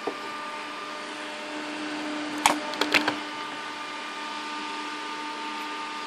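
NZXT FX-140LB 140 mm case fan running steadily: an airflow hiss with thin, steady motor tones. A few sharp knocks about two and a half to three seconds in.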